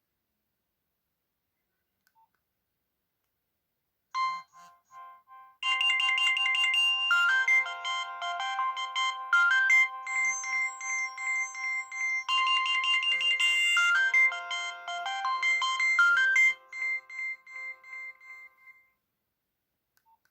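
Nokia 6030 mobile phone playing an electronic ringtone melody of bright, stepped synthesized notes, several sounding together. It starts softly about four seconds in, plays at full level through the middle and trails off near the end.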